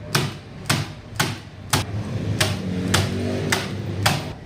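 A hammer striking nails into MDF panels: sharp knocks about two a second, with a short pause about halfway.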